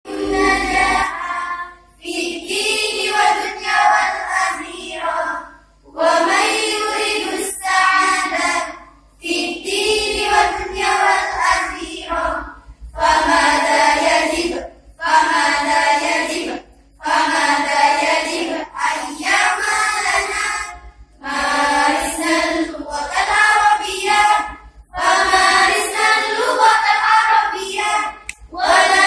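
Girls singing as a group, phrase by phrase with short pauses between phrases, one of them into a handheld microphone.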